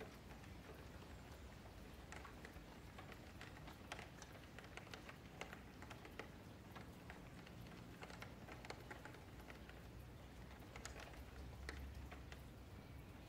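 Faint, irregular clicking of a computer keyboard and mouse, over a low steady hum.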